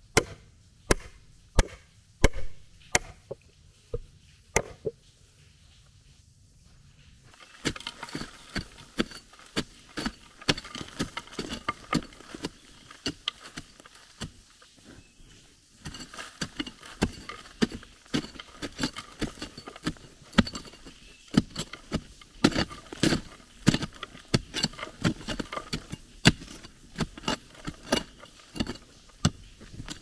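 A hammer striking steel rebar to drive it into the ground beside a board, one sharp metallic blow about every 0.7 s for the first few seconds. After a short lull, from about eight seconds in, a pickaxe chops and scrapes into dirt and shale behind the board in quick, irregular strikes.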